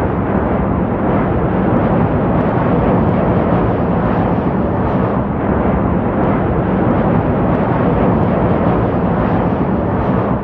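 Steady, loud rushing rumble of jet aircraft engine noise, with no change in pitch or level.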